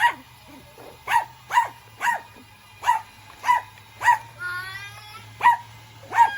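A dog barking repeatedly in short, sharp barks, about one or two a second, with a brief break about halfway through where a short higher rising whine-like sound comes in.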